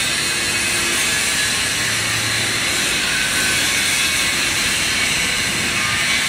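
A loud, steady hiss, even throughout, with most of its energy high up.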